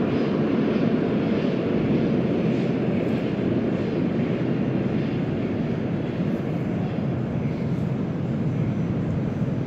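Type 81-765 'Moskva' metro train rumbling away down the tunnel after departing the station. The low, steady rumble fades slowly.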